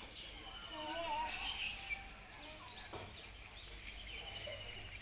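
Birds calling in the background: two fast high trills, one near the start and one near the end, with some wavering chirps between them.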